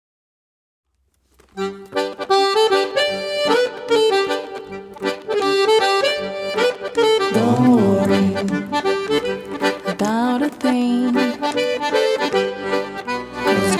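Accordion playing an instrumental introduction, starting after about a second and a half of silence.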